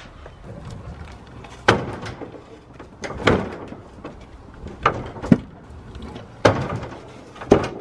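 Stunt scooter and skateboard clattering on concrete and sheet metal: a low rolling rumble broken by about seven sharp knocks, roughly one a second, as wheels and decks hit and land.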